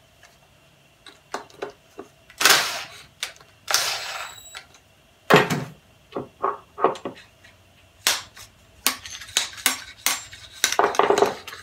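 Metal hand tools and engine parts clanking and clicking against each other and the workbench while a cylinder of a homemade compressed-air engine is taken apart: a few separate sharp clanks, one ringing on briefly about four seconds in, then a quicker run of small clicks and knocks over the last few seconds.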